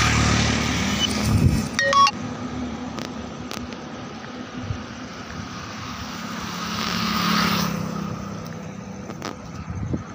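Road traffic: vehicles going by, loudest in the first second or so, with another one swelling past and fading about seven seconds in.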